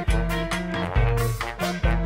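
Upbeat swing-style band music, with a heavy beat a little under once a second under held bass and melody notes.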